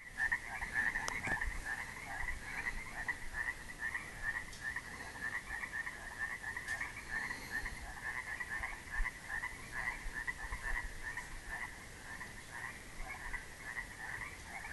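A chorus of frogs croaking: many short calls overlapping in a dense, steady stream.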